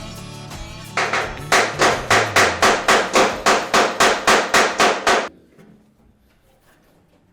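Rapid, even hammer blows, about four a second for some four seconds, knocking the new door of a Riley Elf into line so that it fits its opening. Background music fades out just before the blows start.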